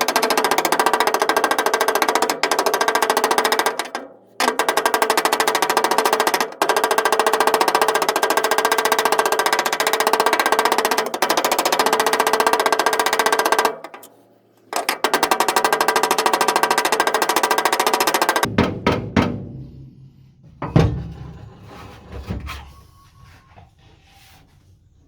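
Pneumatic air hammer rattling rapidly against the steel of a car's rear quarter panel as a dent is worked out from behind. It pauses briefly twice and stops about three-quarters of the way through, followed by a few loud separate knocks and clatter.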